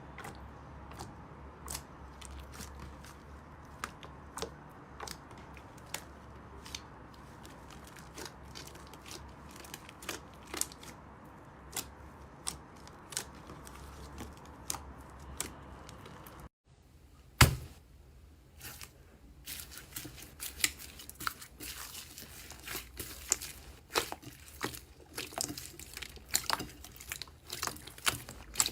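Slime being squeezed and pressed by hand, making scattered sharp clicks and crackles. About sixteen seconds in the sound breaks off, and a loud pop is followed by denser, faster crackling.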